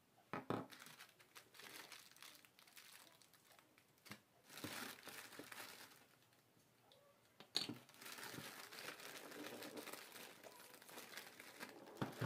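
Clear plastic packaging bag crinkling and rustling as a toy pistol and its parts are handled in it. A few sharp clicks of hard plastic pieces come about half a second in, in the middle and near the end.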